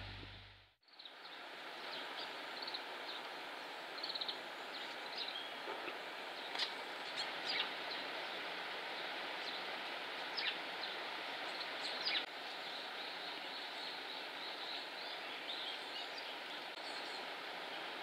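Steady rush of a shallow stream's running water, with scattered short high chirps and ticks of small birds.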